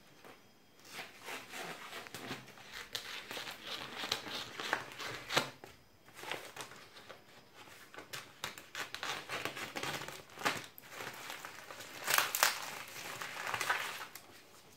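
Plastic wrapping on a rolled carpet being cut open with scissors and pulled apart, crinkling and tearing in irregular bursts, loudest about twelve seconds in.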